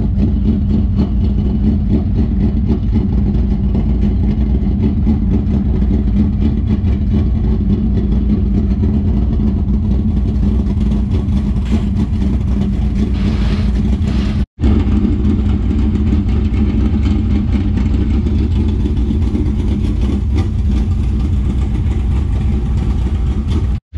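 A steady engine drone that holds one even pitch and never revs up. It drops out abruptly for an instant about two-thirds of the way through.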